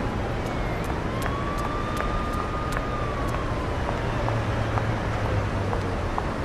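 Water splashing and churning as several people wade through a muddy stream, with a steady low rumble and scattered small splashes and drips.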